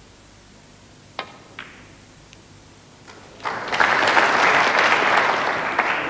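Two sharp clicks about half a second apart, the cue striking the cue ball and snooker balls colliding, then audience applause breaking out about three and a half seconds in and carrying on to the end.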